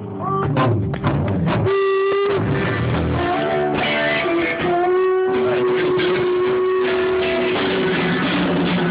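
Rock band playing live in rehearsal: guitar with drums, including long held notes.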